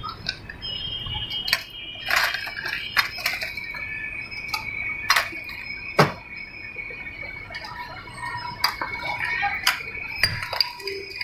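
Clinks and knocks of plastic cups, ice and a chest-freezer lid, with one sharp knock about six seconds in, over a faint steady high-pitched whine.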